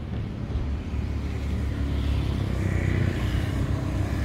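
A motor vehicle's engine running in the background, a low rumble that grows slowly louder.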